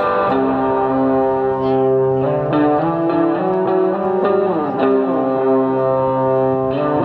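Amplified electric guitar played live: sustained notes ringing over one another, with a few sliding pitches around the middle.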